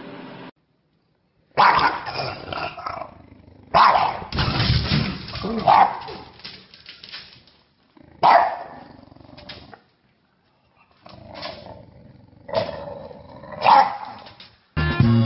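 Dog barking in a handful of loud, sudden barks, across several short clips cut together with brief dead silence between them.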